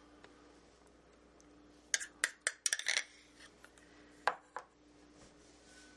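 A metal spoon clinking and scraping against a small dish and a glass mixing bowl as mustard is spooned in: a quick cluster of clinks about two seconds in, then two single taps a little later.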